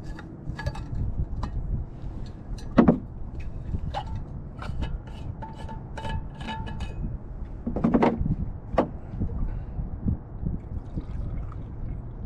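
Wind rumbling on the microphone, with clicks and a few sharp knocks as a green steel vacuum bottle's stopper is unscrewed and handled. Near the end, liquid is poured from the bottle into a metal cup.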